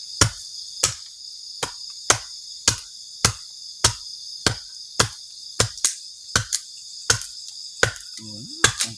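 Crickets chirping steadily in the night forest, with a string of sharp knocks, about two a second, from something being struck repeatedly.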